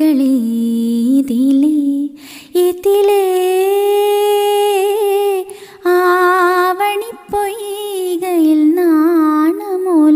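A young woman singing a few lines of a song unaccompanied, in long held notes with wavering ornamented turns, pausing briefly for breath between phrases.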